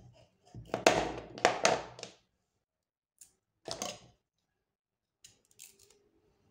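Kitchen knife chopping peeled raw cassava on a plastic cutting board. A quick run of sharp knocks comes about a second in, one more follows near the middle, and faint ticks come near the end.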